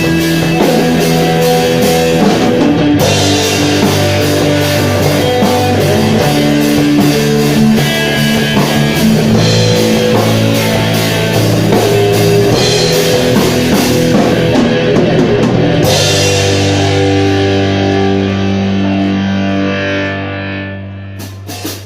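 Live rock band with electric guitar and drum kit playing the end of a song. About three-quarters of the way through the drumming stops and a final held chord rings out and fades away.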